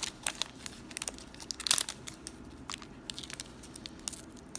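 Foil wrapper of a Magic: The Gathering Amonkhet booster pack crinkling and tearing as it is opened and handled, in irregular sharp crackles.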